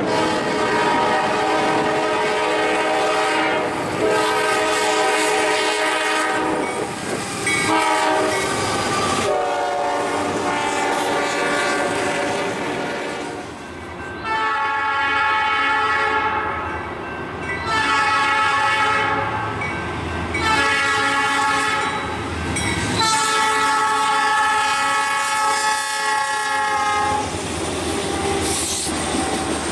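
Freight locomotive multi-chime air horns sounding the grade-crossing signal, long, long, short, long, played twice in a row, with a chord of several tones in each blast. Near the end the horn stops and the wheels of passing tank cars click over the rail joints.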